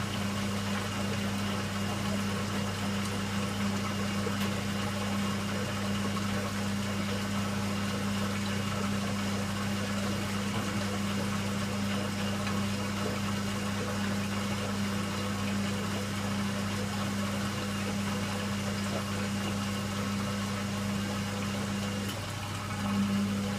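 Indesit 860B washing machine running with a steady low hum. Near the end the higher part of the hum drops out for about a second, then comes back.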